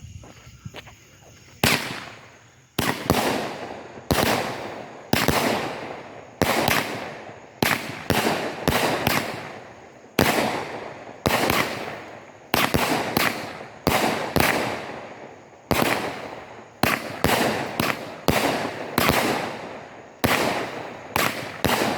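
Pirate Pyro 'Treasure Chest' firework cake firing after its fuse burns down for about a second and a half. It goes off in a long run of sharp shots, one or two a second at an uneven pace, each bang trailing off in a short crackling tail.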